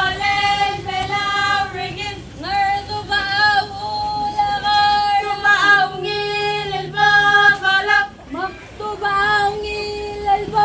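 A group of high voices singing a song together in unison, holding long notes with short gliding breaks between phrases.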